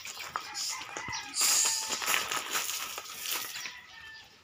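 Footsteps crunching on gravel, a dense high rustle that is loudest for about two seconds in the middle.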